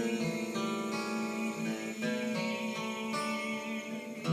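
Acoustic guitar being played, its chords ringing and changing about once a second.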